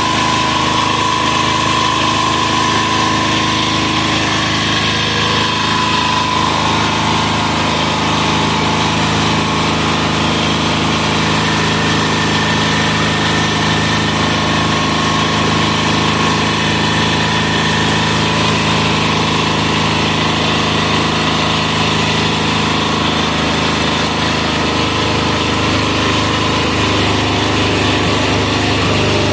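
186FA single-cylinder air-cooled diesel engine running steadily at a constant speed.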